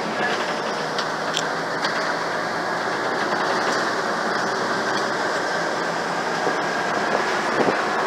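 Cabin noise of an old Scania OmniCity single-decker bus on the move: steady engine and road noise with faint clicks and rattles from the worn body and fittings. The bus is known as incredibly loud and rattly.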